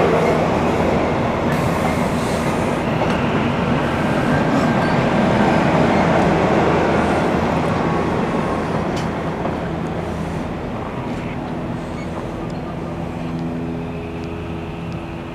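Six-car Rotem Silverliner V electric multiple-unit train pulling away past the platform: wheel and rail noise with a steady electric hum. The sound fades steadily as the last car goes by and the train recedes.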